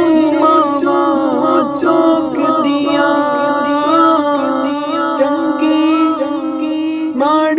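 A man singing a slow Punjabi song solo, his voice holding long notes and bending between them.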